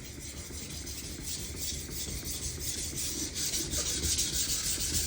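Kitchen knife blade being stroked back and forth across a wet Shapton Kuromaku 1000 grit water stone in freehand sharpening: a hissing scrape that swells with each stroke, about two or three strokes a second, refining the scratch pattern left by coarser stones.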